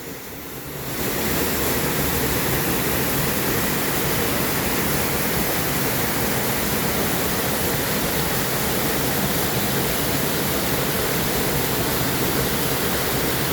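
Waterfall: water falling and rushing in a steady, even roar, reaching full level about a second in.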